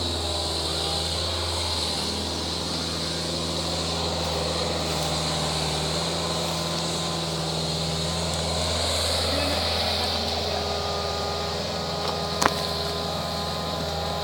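Engine running steadily at an even pitch, a constant low hum, with a single sharp click about twelve seconds in.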